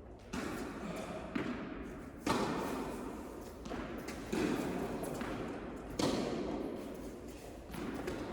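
Tennis ball hits and bounces during a rally on an indoor court: sharp pops about one to two seconds apart, each ringing on in the hall's echo.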